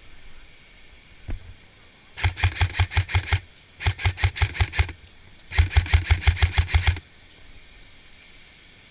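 Airsoft rifle firing three full-auto bursts of about a second each, around ten shots a second, after a single knock about a second in.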